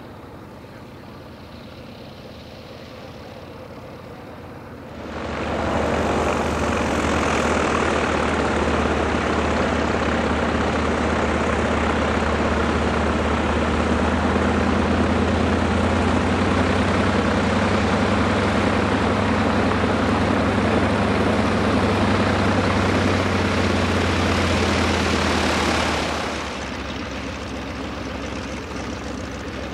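Radial engines of vintage light aircraft running at taxi power with their propellers turning. About five seconds in, a much louder, close radial engine cuts in, the Howard DGA's, running steadily with a deep even drone. Near the end it drops away to a quieter radial engine.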